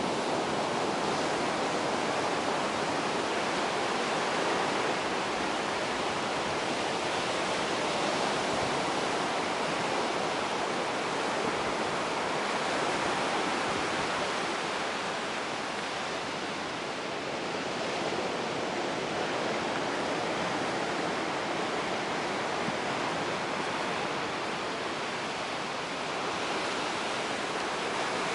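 Ocean surf washing over a rocky shore: a steady hiss of breaking waves that eases slightly twice and swells back.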